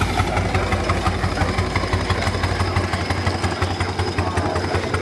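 An engine idling steadily, running with a fast even beat.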